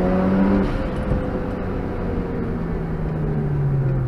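Interior sound of a GReddy-turbocharged Mazda RX-8's two-rotor rotary engine on track. The note holds briefly, then from about half a second in its pitch slowly falls as the revs drop.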